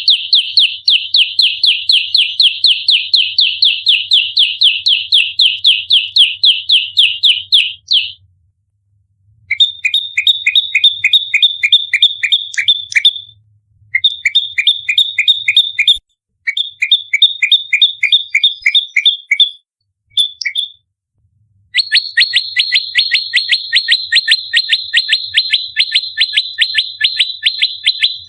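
Prenjak lumut bird in its fast 'fighting' call: long runs of sharp, high chirps at about five a second, broken by a few short pauses. This is the dense rapid-fire calling that keepers call 'tarung nembak rapat'.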